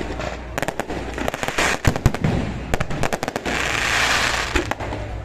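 Aerial fireworks going off: quick clusters of sharp cracks and bangs from bursting shells, with a loud crackling hiss a little past halfway.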